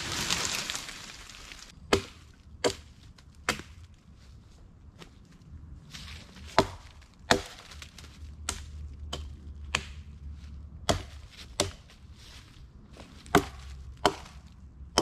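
A hatchet chopping limbs off a downed pine pole: about eleven sharp chops at uneven intervals, some coming in quick pairs. A second-long rush of noise comes just before the first chop.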